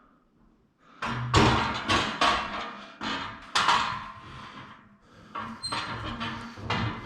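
Metal scaffolding parts knocking and clattering as they are handled and fitted into the frame: a run of sharp knocks and rattles starting about a second in.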